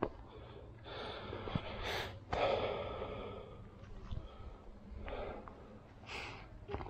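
The man filming breathing hard, out of breath from climbing: a few loud breaths, the loudest about two seconds in, then softer ones.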